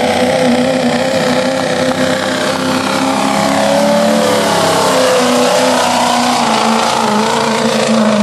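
Pickup truck engine running loud and steady, its pitch wavering slightly up and down.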